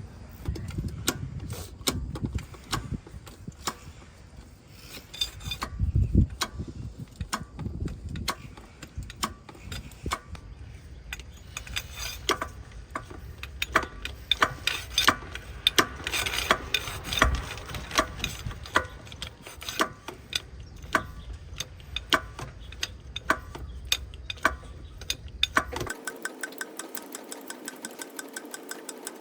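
Irregular sharp mechanical clicks and knocks over a low rumble. Near the end the sound cuts to a thinner, more even run of ticks.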